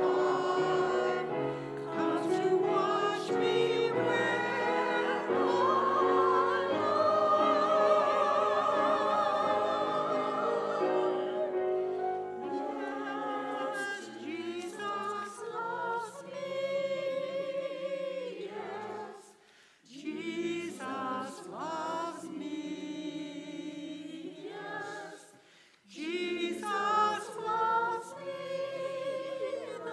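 Mixed church choir singing an anthem. The sound thins about twelve seconds in, and the singing breaks off briefly twice in the second half, between phrases.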